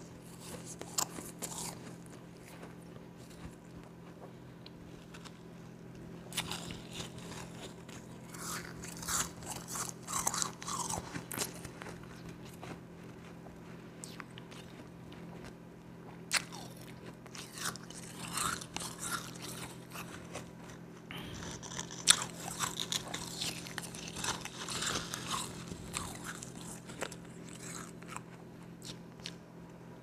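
Close-up crunching and chewing of a mouthful of powdery ice, crisp crackling bites coming in bursts with quieter pauses between.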